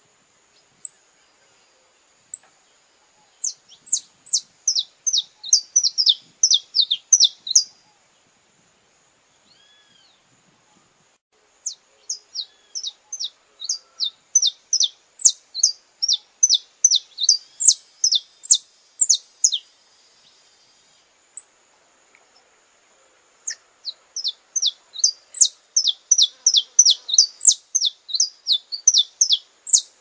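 Saffron finch singing: three bouts of quick, sharp, down-slurred chirps, about three a second, with a few single chips between the bouts.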